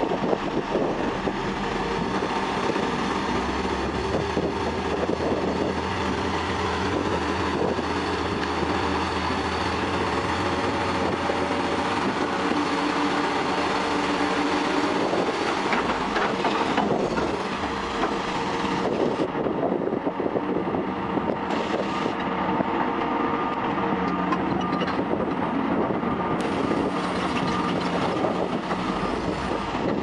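Caterpillar 345C hydraulic excavator working hard under load as it drags a mired crawler dozer out of mud and water: a steady diesel engine and hydraulic whine with metallic clanking and squealing.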